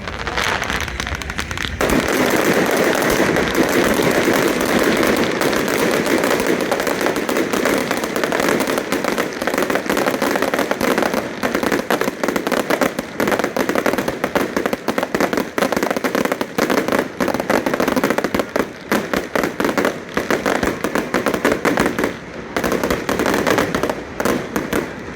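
Fireworks: a dense barrage of rapid crackling and popping that sets in about two seconds in and thins out near the end.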